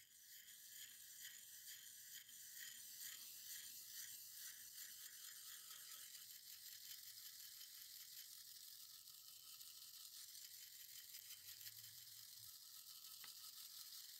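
Faint, steady scrubbing of a small stiff-bristled hand brush worked back and forth over the wet, rusty steel blade of an old ripping tine, sitting in a shallow tray of rust-removal liquid.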